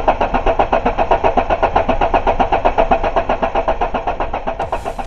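Volvo 480 ES 2.0 litre petrol engine cranking on its starter motor in an even rhythm of about six pulses a second without catching: the engine turns over but gets no spark. Electronic music comes in near the end.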